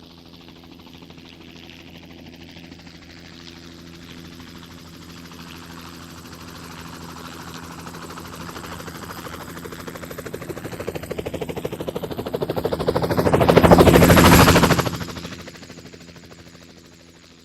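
Helicopter flying past: the rapid chop of its rotor blades and the whine of its turbine grow louder, peak loudly about fourteen seconds in, then fade away. The turbine whine rises in pitch as it comes in and drops as it goes away.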